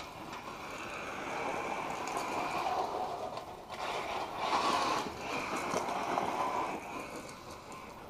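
1/8-scale electric RC car with a Castle Sidewinder 2200 kV brushless combo driving on gravel: motor whine and tyres churning gravel. The sound builds, is loudest from about four and a half to six seconds in as the car runs close, then fades.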